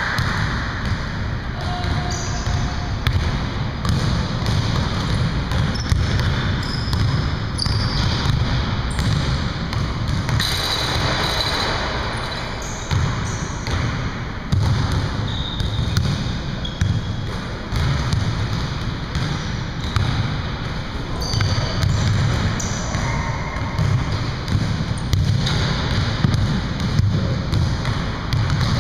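Basketballs bouncing and being dribbled on a hardwood gym floor, an irregular run of thumps that echo in the hall. Short high squeaks come now and then.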